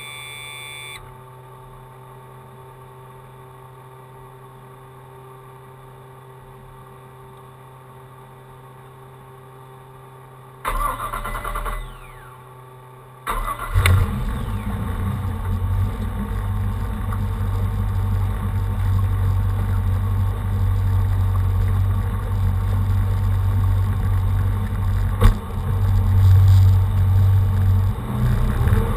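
A boat's engine is cranked about ten seconds in and fails to catch. It is cranked again a couple of seconds later, catches, and settles into a steady low idle. Before the first crank there is only a faint steady hum.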